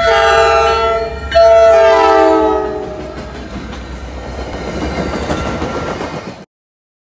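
MBTA commuter rail diesel locomotive sounding its air horn in two loud blasts as it reaches a grade crossing; the chord of the second blast drops in pitch as the locomotive passes. The passenger coaches follow, rumbling and clattering over the rails, until the sound cuts off abruptly near the end.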